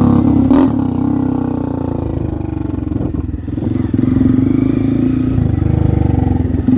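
Honda Titan's single-cylinder four-stroke engine running loud through a homemade PVC exhaust, crackling, with a sharp pop about half a second in; it eases off around three seconds in, then is revved up again and runs louder.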